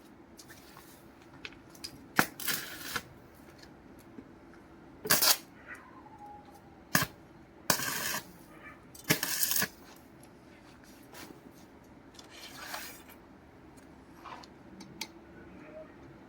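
Steel pieces clinking and knocking as they are handled on a metal work surface, irregular sharp clanks with a few short rasping bursts of about half a second.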